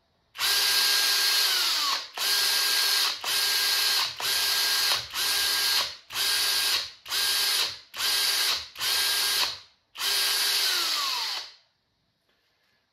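Makita cordless drill's brushless motor, under sensorless control, snapping up to full speed and stopping again about ten times in a row, each run a steady high whine. Each run reaches full pitch almost at once, because the motor is accelerated at the maximum allowed current. Each run ends with a short falling coast-down, the last one longer.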